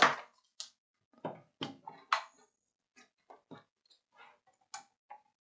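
Handling noise from soldering tools on a workbench mat: a soldering iron and a plastic desoldering pump are picked up and put down near a circuit board. It comes as a string of short, irregular knocks and clicks, the loudest at the start.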